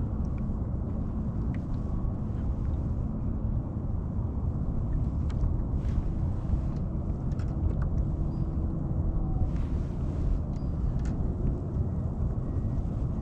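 Steady low rumble of wind buffeting the microphone out on open water, with a few faint ticks over it.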